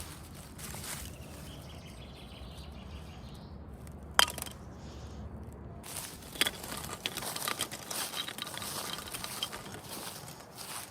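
Plastic toy packaging being handled and unwrapped: crinkling and rustling with scattered sharp clicks, the loudest about four seconds in and busier crackling through the second half.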